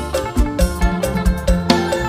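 Live band playing an instrumental break in a Thai luk thung song: held melodic notes over a steady drum beat of about four hits a second.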